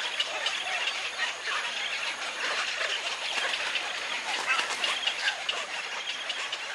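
Woodland ambience: many small birds chirping and calling over one another in a steady chorus.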